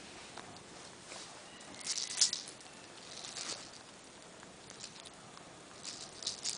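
Kitten eating bonito flakes from a metal bowl: small clusters of crisp ticks and crunches. The loudest cluster comes about two seconds in, with more near the end.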